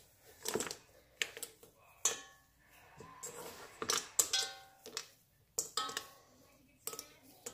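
Mixing bowl knocking and clinking as stiff chocolate-chunk cookie dough is folded in by hand: about nine irregular knocks, several followed by a brief ringing tone.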